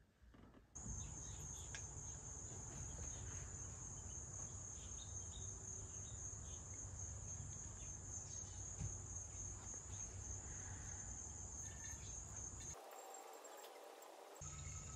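Insects trilling in one steady high-pitched drone over a low outdoor rumble; the trill drops out for about a second and a half near the end.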